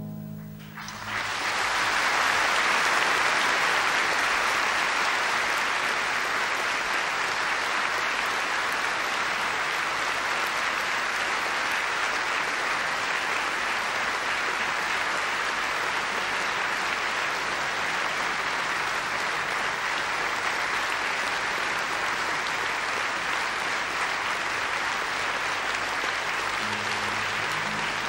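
Concert audience applauding, swelling quickly about a second in and then holding steady. Near the end, an acoustic guitar starts softly under the applause.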